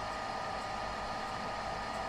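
A computer with a Tesla V100 GPU running under load: a steady machine hum and whir with a high, steady whine. This is the strange running noise that the uploader says grows louder with heavier YOLO models.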